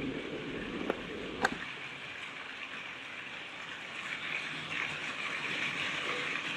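Steady rain falling on a garden lawn and into the water of a paddling pool, an even hiss, with two sharp taps about a second in.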